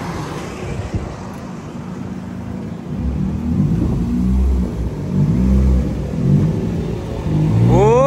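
A Honda City's four-cylinder engine, running with its catalytic converter and resonator deleted and an aftermarket muffler, is revved in several short blips from about three seconds in, with a quick sharp rev near the end. Before that, a passing SUV is heard going by.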